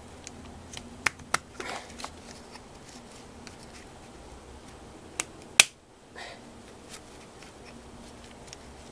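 Sharp clicks and short scrapes of the plastic and metal parts of a sawn-open electronic EGR valve being handled and pried at, with the loudest click about five and a half seconds in.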